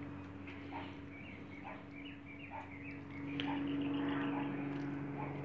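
Faint short animal calls repeating about once a second over a steady low hum, the hum growing louder about halfway through.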